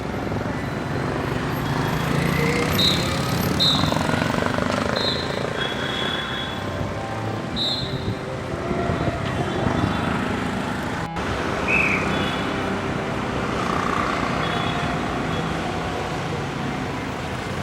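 Street traffic: vehicle engines and road noise running steadily, with a few short high-pitched beeps in the first half.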